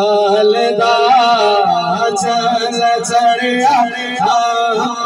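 A man singing a naat solo into a handheld microphone, in long held notes that glide and waver in pitch, with no break.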